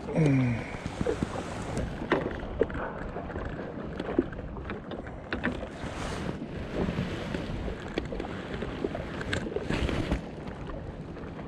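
Wind buffeting the microphone over water lapping, with scattered small clicks and knocks. A short call falls in pitch right at the start.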